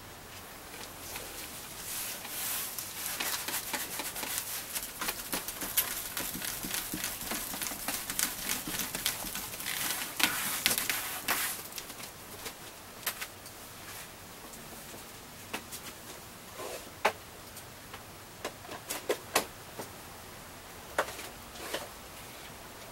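Hand woodblock printing work at the block: a dense scrubbing, rustling sound for about ten seconds, then scattered light clicks and taps. Paper is handled near the end as a print is peeled from the block.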